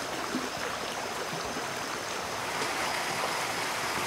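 Small, shallow stream running over its bed: a steady babble of flowing water.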